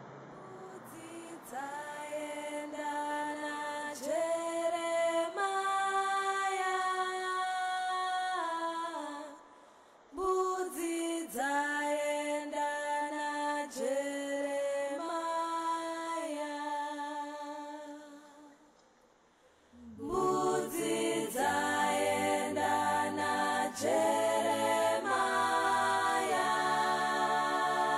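Unaccompanied singing as background music: long held sung notes in phrases, with short breaks about 10 s and 19 s in. From about 20 s in, a fuller several-voice texture with lower parts takes over.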